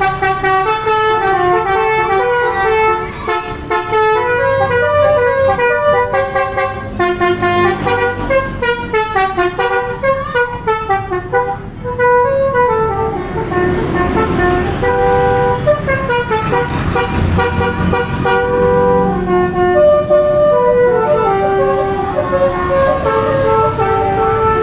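Bus telolet horn, a multi-note air horn, playing a quick tune of short stepping notes that keeps going without a break.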